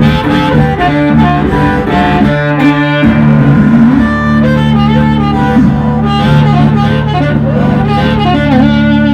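Amplified blues harmonica played into a microphone, holding notes and bending their pitch, over an electric guitar accompaniment with steady low notes.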